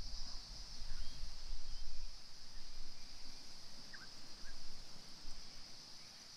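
Outdoor bush ambience: a steady high-pitched insect drone, with gusty wind rumbling on the microphone and a few faint bird chirps about four seconds in.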